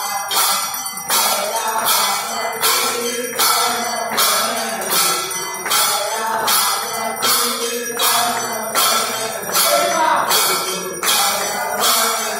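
Temple bells clanging in a steady rhythm of about two strokes a second, sounded for the evening aarti.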